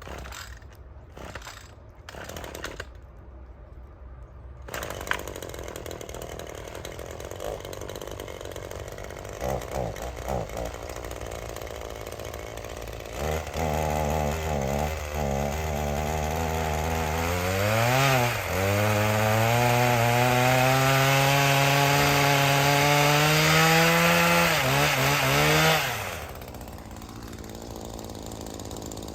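Echo PPT-2620 pole saw's small two-stroke engine cold-starting after a few short pulls. It catches about halfway through and runs unevenly at low speed, revs once, then runs steadily at a fast idle that slowly rises in pitch, and cuts off suddenly near the end.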